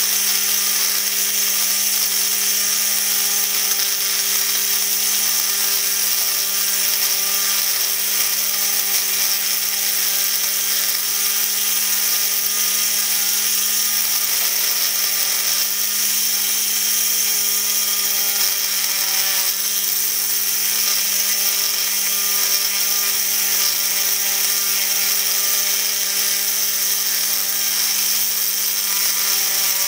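Small electric drill running steadily with an even hum while its 3 mm bit grinds a hole into an 8 mm ruby ball.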